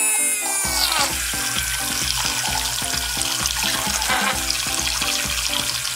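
Small DC motor of a homemade syringe-bodied water pump whining, its pitch falling away about half a second in. Then water sprays and splashes into a glass bowl, over background music with a steady beat.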